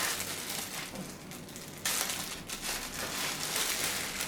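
Plastic packaging crinkling and rustling as small parts are handled, getting louder about halfway through.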